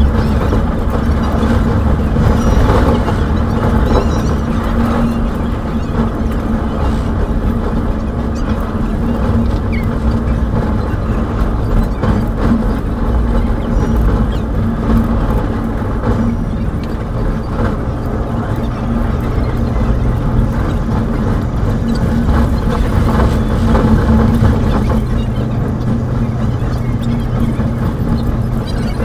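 Passenger train running on the rails, a steady rumble with a constant hum and many quick rail clicks, sped up about three and a half times.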